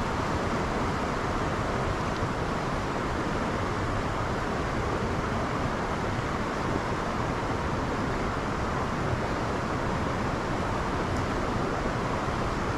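Steady rushing noise of the river's flowing water, with a low hum of traffic beneath it.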